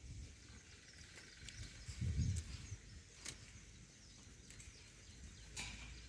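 Faint outdoor ambience at a goat pen, with a low rumbling thump about two seconds in and a few sharp clicks later on.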